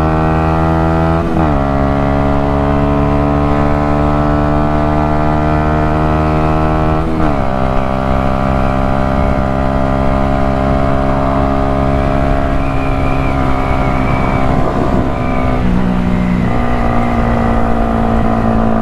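Yamaha YZF-R125's 125 cc single-cylinder four-stroke engine accelerating hard through the gears. The note climbs, drops with an upshift about a second in and again about seven seconds in, then climbs slowly again.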